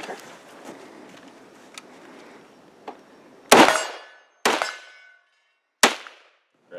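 Three rifle shots about a second apart, each a sharp report followed by a brief ringing tail.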